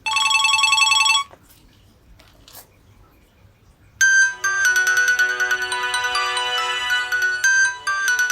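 Nokia 6555 mobile phone's speaker sounding a steady electronic tone for about a second. After a pause with a few faint clicks, a polyphonic ringtone melody starts about four seconds in.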